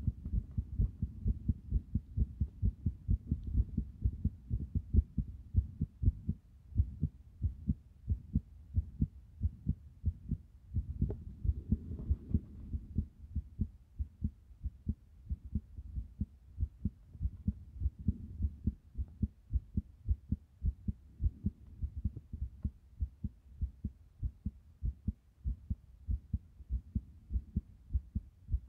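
Human heartbeat picked up close against the chest: a fast, unbroken run of low thumps, two to three a second, with uneven spacing that the title calls an irregular heartbeat.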